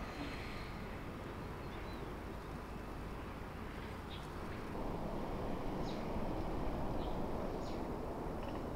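Outdoor ambience: a steady rushing noise that grows louder about five seconds in, with a few short, faint high chirps scattered through it.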